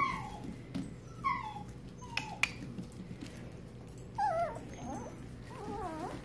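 Italian Greyhound puppies whining and yipping as they play: about five short high whines, the first few falling in pitch and the last two wavering.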